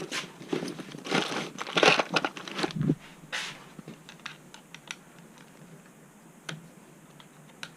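Hands working on parts of a Onewheel Pint: rustling and crinkling with many small clicks and knocks, busiest in the first three seconds or so, then only a few light clicks.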